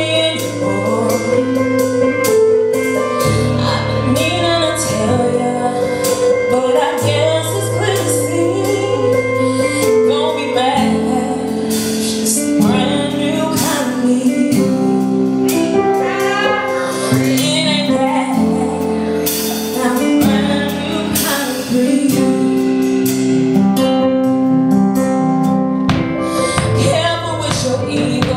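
Live band playing a slow song: drum kit with cymbals, sustained low bass notes, and a woman singing into a microphone.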